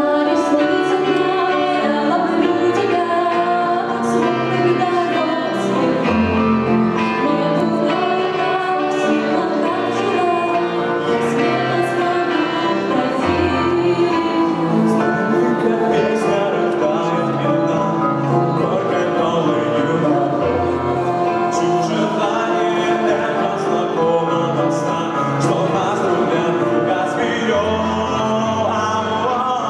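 Live music from an electric guitar and keyboard duo, with singing over a steady low bass-note pattern.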